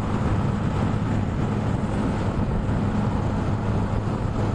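Honda XRE 300 single-cylinder four-stroke engine running steadily at highway cruising speed, around 100 km/h, with a steady hum of wind and road noise over it.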